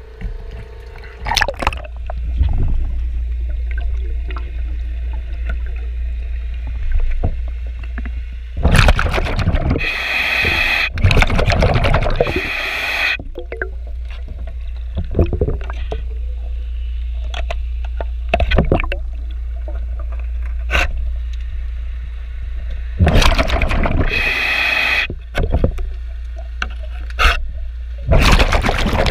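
Underwater sound of hull cleaning: a steady low rumble, scraping on a barnacle-fouled boat hull, and loud gurgling bursts of a diver's exhaled bubbles rushing past, the biggest around nine to thirteen seconds in and again around twenty-four seconds.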